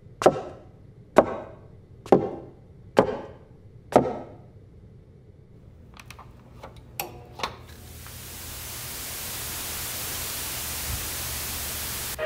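Five heavy thuds, about one a second, then a few light clicks. Then the hiss of television static fades up and holds steady.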